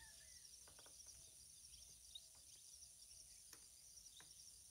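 Near silence: a faint, steady, high insect-like chirring, with a few soft clicks of wires being handled.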